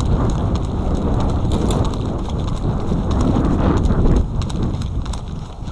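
Quick footfalls of a player moving off at the start of an airsoft game, with a busy rustle and knock of clothing and gear. Loud until about four seconds in, then easing off.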